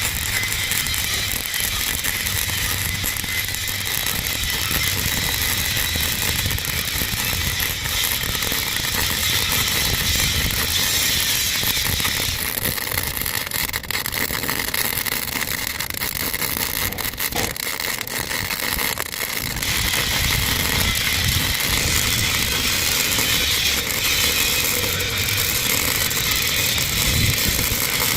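Arc welding on 10 mm steel plate: a steady, dense crackle of the arc that continues throughout, changing slightly in character about 12 and 20 seconds in.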